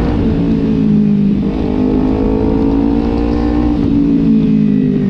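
Kawasaki Ninja 250 FI parallel-twin engine breathing through an Austin Racing aftermarket exhaust, pulling under acceleration while riding. Its pitch climbs, drops at an upshift about a second and a half in, climbs again and drops at a second shift about four seconds in, with wind rush underneath.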